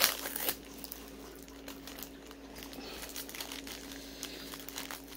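Soft rustling and crinkling of handled packaging, with a short sharper crinkle right at the start and another about half a second in, over a faint steady hum.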